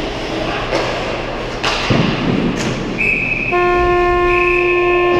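Ice rink with sharp stick-and-puck knocks at the net about two seconds in, then a referee's whistle about three seconds in and the arena horn sounding steadily from about three and a half seconds, as play stops after the goalmouth scramble.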